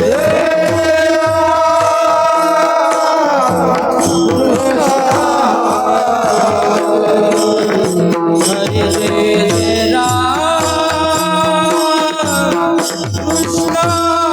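Kirtan music: a voice singing long held, gliding notes over steady mridang drum strokes and a sustained drone.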